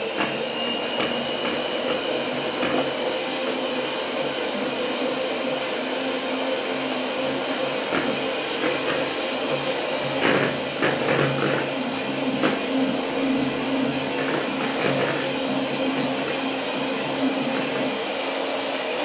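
Two-speed electric hand mixer running steadily at medium speed, its beaters whipping cream in a bowl, with a few clicks of the beaters against the bowl about ten seconds in. The cream is beaten at medium speed so it foams without turning to butter.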